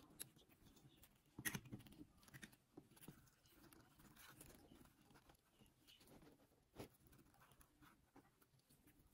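Near silence with faint handling sounds: a fabric petal rustling and small knocks of a metal flower-shaping tool against the padded work board. The loudest knocks come about a second and a half in, with another near seven seconds.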